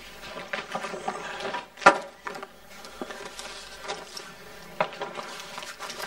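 Light clinks and knocks of household objects being handled, with one sharp knock about two seconds in.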